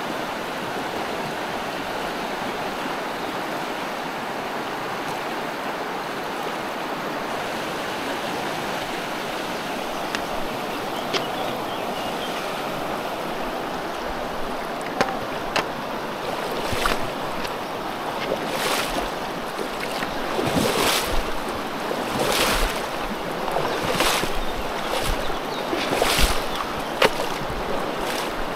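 River water rushing steadily over the riverbed. In the second half a run of short, sharp noises comes roughly every second and a half.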